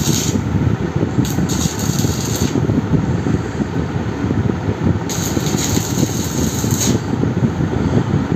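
Stick arc welding crackling and hissing in short runs: one ending just after the start, one at about one to two and a half seconds, another at about five to seven seconds, over a steady low rumble. The runs lay weld metal onto a damaged thread of a hydraulic cylinder part.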